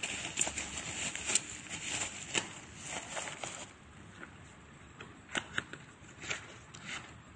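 Plastic packaging rustling and crinkling as a parcel is unwrapped by hand, then quieter handling of paper and a small cardboard box with a few sharp taps past the middle.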